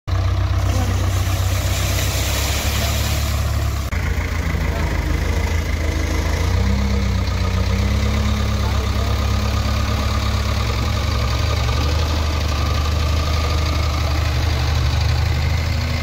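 JCB backhoe loader's diesel engine running at idle, a deep steady hum. A rushing hiss lies over it for the first few seconds, and a faint steady whine joins in about six seconds in.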